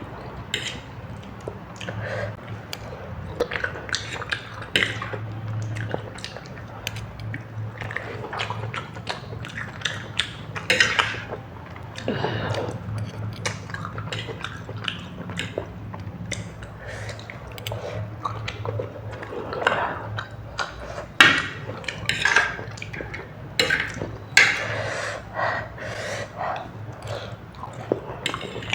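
Close-miked eating: irregular wet chewing and slurping sounds with sharp clicks of utensils on a dish, over a steady low hum.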